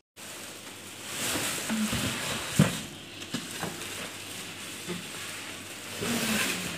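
Clear plastic packaging bag crinkling and rustling as an oven is handled inside its cardboard box, with a sharp knock about two and a half seconds in.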